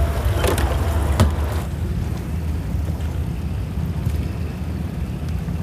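Wind rumbling on the microphone aboard an open boat. For the first second and a half, water sloshes in the deck fish well with a couple of sharp knocks as a fish is put in.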